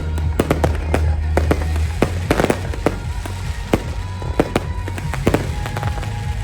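Fireworks display: shells bursting in quick succession, several sharp bangs a second, with music playing underneath.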